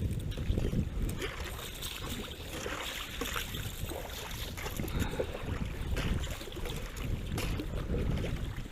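Water splashing and dripping with small knocks as a gill net is hauled by hand over the side of a small boat, with wind buffeting the microphone.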